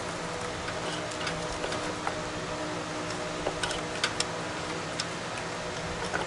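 Scattered light clicks and taps of hard plastic as a headlight housing with a retrofitted projector is handled, a few sharper clicks coming close together about three and a half to four seconds in. A steady hum runs underneath.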